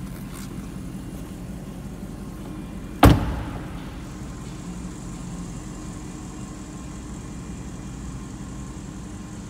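Audi RS7 performance's twin-turbo V8 idling steadily through its Akrapovic titanium exhaust, with the driver's door slammed shut about three seconds in, the loudest sound.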